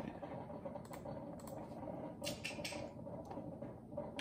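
Typing on a computer keyboard: a few scattered key taps, then a quick run of several keystrokes just after the middle, over the steady hum of a coffee maker running.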